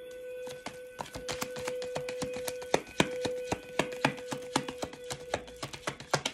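A tarot deck being shuffled by hand: rapid, irregular clicks and snaps of the cards, over a steady held tone.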